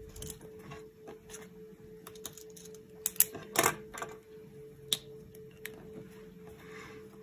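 A felt-tip marker and planner being handled on a desk: scattered light taps and scratches, with a cluster of sharp clicks about three seconds in, the loudest just after, and another click near five seconds.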